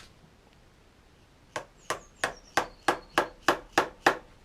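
Dead blow hammer tapping a screwdriver wedged into the fork clamp, spreading the clamp open so the fork leg will slide in: nine sharp, even taps about three a second, starting about a second and a half in.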